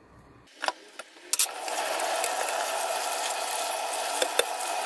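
A few clicks and knocks, then a kitchen tap running steadily into a stainless-steel sink, the water splashing over a metal colander of meat being rinsed by hand.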